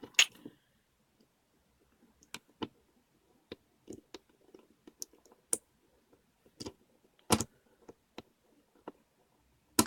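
Loose plastic pieces of a Dayan Zhanchi 3x3 speed cube clicking and tapping as they are handled and fitted back together: scattered sharp clicks at uneven intervals, the loudest two about seven seconds in and near the end.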